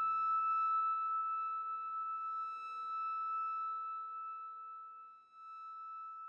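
Closing note of an electronic synthesizer soundtrack: a high steady tone that slowly fades out. The low bass under it cuts off under a second in.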